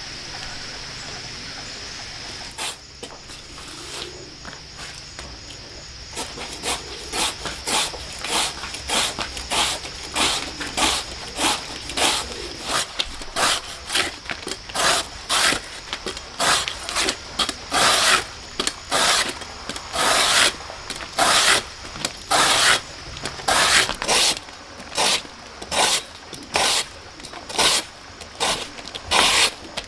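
Repeated scraping or rasping strokes, about one and a half a second, starting a few seconds in and growing louder, over a faint steady high hum.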